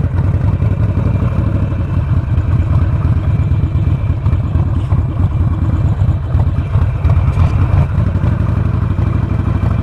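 Harley-Davidson Sportster Forty-Eight's air-cooled V-twin running at low speed while the bike is ridden slowly: a steady, loud, low engine note made of rapid, even pulses.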